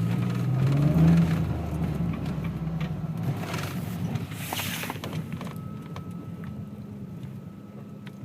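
A car's engine running with a low hum that swells to its loudest about a second in, then slowly dies away, with scattered light clicks over it.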